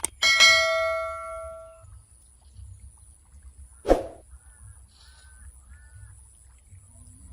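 A sharp ding that rings with several clear tones and fades out over about a second and a half, followed about four seconds later by a single short thump.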